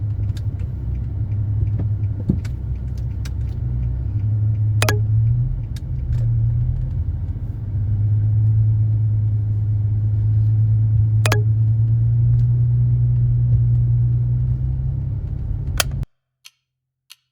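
Car driving: a steady low drone of engine and road noise, broken by a few sharp clicks. It cuts off abruptly near the end.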